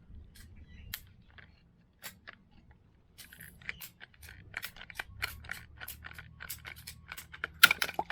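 Blue plastic water pipe being cut through, a run of crunching clicks and snaps a few times a second. The clicks grow denser about three seconds in, with the loudest snap near the end.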